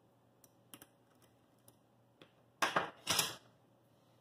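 Small metal parts and hand tools handled on a workbench: a few light clicks, then two short rattling scrapes about two and a half to three and a half seconds in, as a T-handle hex key is taken up.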